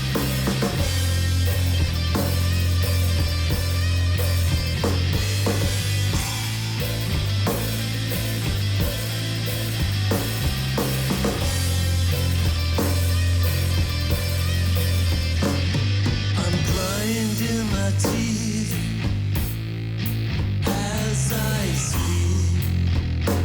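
Instrumental stretch of a heavy stoner-rock song played by a three-piece band: a loud, steady bass line, guitar and pounding drums with cymbals, no vocals. About sixteen seconds in the cymbals drop away and a guitar plays bending, sliding notes before the drums come back in.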